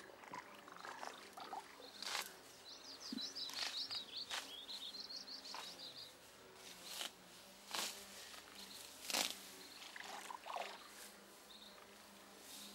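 Faint outdoor ambience: a small songbird sings two quick phrases of rapid, high repeated notes about three to five seconds in, with a few lower chirps later. Several short sharp clicks sound through it.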